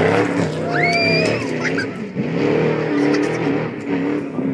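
Off-road race vehicle engine revving hard as it passes on a dirt course, its pitch rising and falling.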